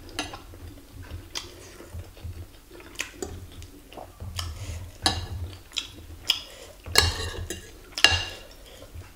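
Metal spoon and fork clinking and scraping against a ceramic bowl: a string of short sharp clinks, the loudest two about seven and eight seconds in.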